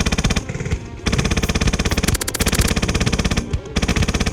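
HPA-powered airsoft light machine gun firing full-auto in rapid bursts: a short burst at the start, a long burst of over two seconds beginning about a second in, and another short burst near the end.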